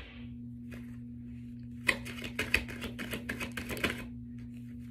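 Tarot cards being shuffled and handled, a run of quick snaps and taps about two to four seconds in, over a steady low hum.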